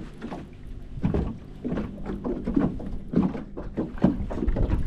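Water lapping and knocking irregularly against a small boat's hull, over a low wind rumble.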